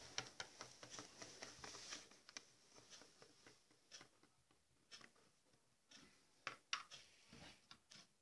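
Faint, scattered light clicks and taps of small plastic toy figures being handled and set down on a tabletop, with a couple of slightly louder taps past the middle; otherwise near silence.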